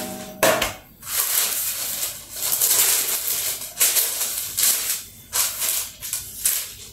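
A sheet of baking paper rustling and crinkling in a run of repeated swishes as it is pressed and smoothed flat into a metal baking tray.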